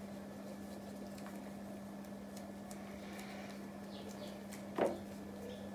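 Quiet room tone with a steady low hum, broken by one brief short sound a little before the end.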